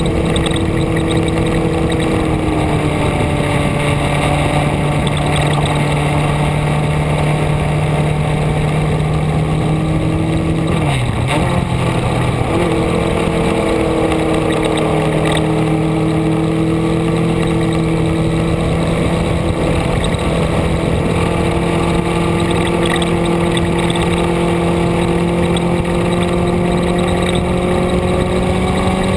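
A vehicle's engine running steadily under way, its pitch holding and then shifting several times. About eleven seconds in, the pitch dips briefly and then settles at a new level.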